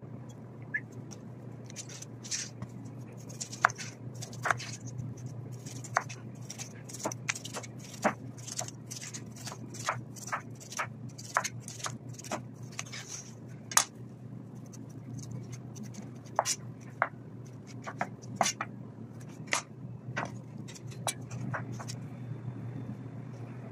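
Large kitchen knife cutting the rind off a pineapple on a plastic cutting board: a long irregular run of sharp taps as the blade strikes the board, mixed with short rasping slices through the skin. A steady low hum runs underneath.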